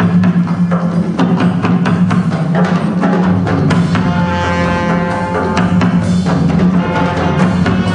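Minangkabau traditional ensemble music: gandang drums struck in a fast, dense rhythm over a steady low drone, with a held pitched tone joining about four seconds in and dropping away about two seconds later.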